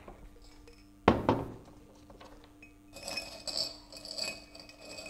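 A ceramic cup set down on a wooden table with one sharp knock about a second in, then small charms clinking and rattling inside it as a hand stirs them, before one is drawn for a charm casting.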